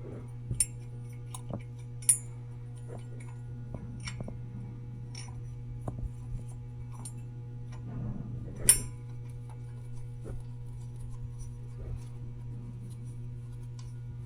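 Hand tools and metal parts clinking and clicking sporadically during work on an engine's thermostat housing while a new thermostat is fitted. The sharpest click comes about two-thirds of the way through, all over a steady low hum.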